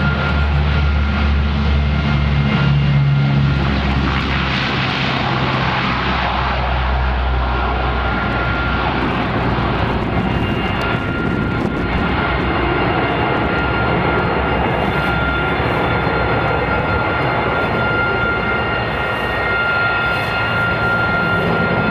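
Lockheed P-3 Orion's four Allison T56 turboprop engines at takeoff power, a loud steady drone with a high steady whine over it. The deep rumble is heaviest in the first several seconds, during the takeoff roll, and thins as the aircraft climbs away.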